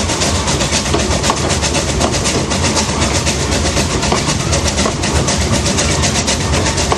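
Narrow-gauge steam train running, heard from on board: a fast, even beat of about five a second over a steady rumble of wheels on the rails.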